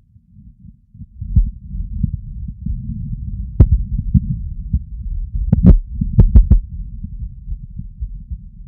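A human heartbeat picked up close against the chest, heard as low, muffled beats. It comes in about a second in, with a few sharp clicks in the middle.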